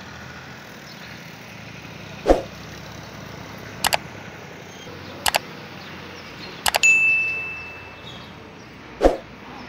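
Sound effects of an animated YouTube subscribe overlay: a short whoosh as it slides in, three quick double mouse clicks on the like, subscribe and bell buttons, a bright bell ding that rings out for about a second, and a whoosh as it slides away. Underneath is a steady hum of outdoor street noise.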